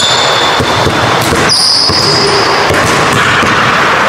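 Basketballs bouncing on a hardwood gym floor, with high sneaker squeaks at the start and again about a second and a half in.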